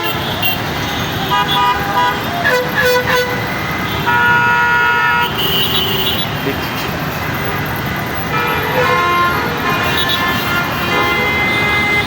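Vehicle horns honking in heavy road traffic: several short toots and one longer blast about four seconds in, over a steady traffic noise.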